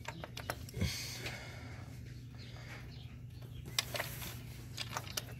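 Scattered small clicks and knocks with light rustling, as the high-pressure fuel pump of a 3.5 EcoBoost V6 is wiggled loose from its mount by hand. A steady low hum runs underneath.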